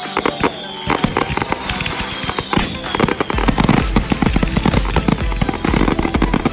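Firework cake firing, with dense rapid popping and crackling reports, over background music whose bass beat comes in about three seconds in.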